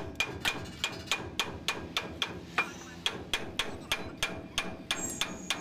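Hand hammer striking the steel shackle and hanger of a Tata truck's leaf spring in steady blows, about three a second, each with a short metallic ring, as the re-arched spring is fitted back.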